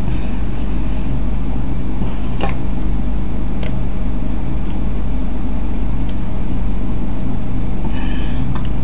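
Domestic cat purring loudly and steadily right against the microphone, a continuous low rumble with a few faint ticks and rustles over it.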